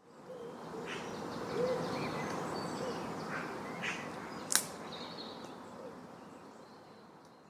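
Nature ambience: a steady hiss with scattered short bird chirps and a few low calls, and one sharp click about four and a half seconds in. It fades in at the start and fades out near the end.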